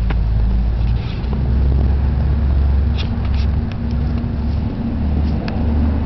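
A loud, steady low rumble, with a few faint short crackles.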